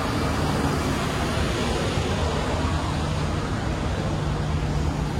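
Steady rushing noise with an even low hum beneath it, the background on a cruise ship's upper open deck: wind together with the ship's machinery running.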